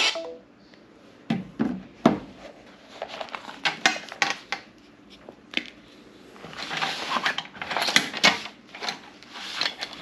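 Handling noise from a cell phone and a dry bag: scattered clicks and knocks as the phones are picked up and tapped, then from about six seconds in a denser run of rustling and knocks as the bag is handled.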